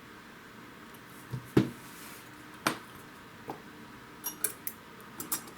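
A few light clicks and clinks of small hard objects, such as tools and a phone, being handled and set down on a work surface. The loudest knock comes about a second and a half in, and a quick run of small clinks follows near the end.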